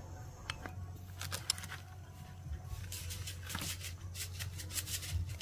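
Rustling and scattered light clicks, more frequent in the second half, over a steady low hum.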